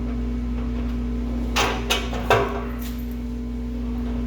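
Three short, sharp knocks about a second and a half to two and a half seconds in, the last the loudest, over a steady low hum.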